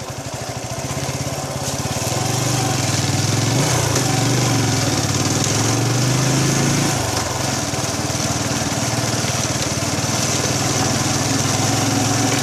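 A vehicle engine running under way along a rough dirt road. It grows louder over the first two seconds, its pitch rises briefly about four seconds in, and it eases off around seven seconds.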